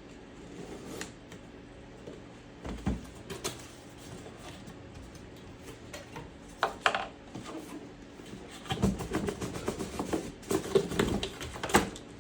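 A cardboard shipping box being opened and its contents handled: scattered knocks and crinkly rustling, getting busier over the last few seconds.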